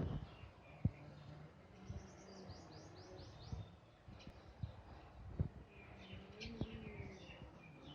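Green parakeet calling: a quick run of about six short, high, falling chirps, then a second cluster of chirps a few seconds later, with a few sharp knocks between them.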